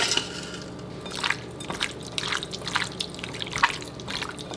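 Irregular wet squelches and smacks, a few a second, as cut chicken pieces are mixed by hand into a yogurt, ginger-garlic and salt marinade.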